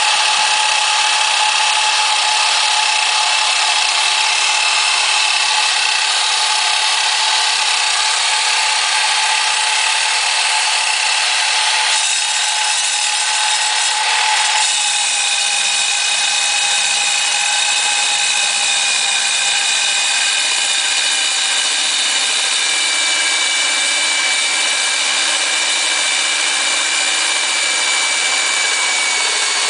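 KOR-IT K-806 electric core drill running on its stand as its core bit cuts into wet concrete. The motor gives a steady high whine, which drops slightly in pitch about halfway through as the bit is fed down.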